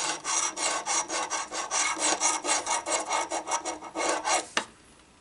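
A coin scraping the silver coating off a scratch-off lottery ticket in quick back-and-forth strokes, about five a second, stopping about four and a half seconds in.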